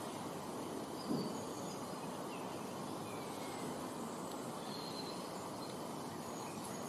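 Steady outdoor background hiss with a few faint, short bird chirps, and a soft thump about a second in.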